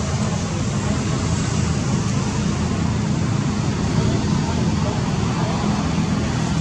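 Steady outdoor background noise, a low rumbling hum under an even hiss, like distant road traffic.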